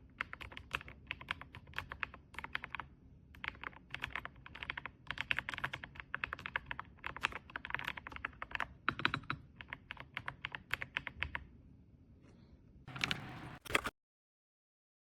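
Typing on a Redragon K668 full-size mechanical keyboard: fast runs of key clicks with short pauses, easing off after about eleven seconds. A quick dense flurry of keystrokes follows, then the sound cuts off suddenly.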